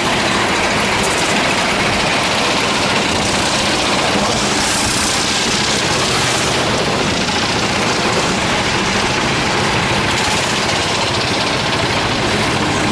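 Racing kart engine running, heard through an onboard camera: a loud, steady drone with a dense rushing noise over it.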